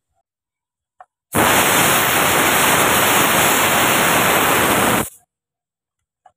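Compressed-air blow gun blasting brake dust off the brake caliper, pads and disc. It gives one steady, loud hiss of about four seconds that starts and stops abruptly, with a faint click just before it begins.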